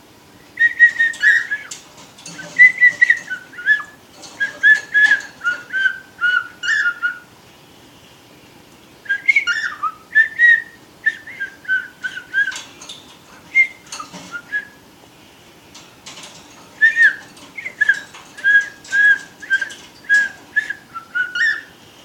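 Pet cockatiel whistling a tune: three phrases of short, clear whistled notes, each a few seconds long, with brief pauses between them.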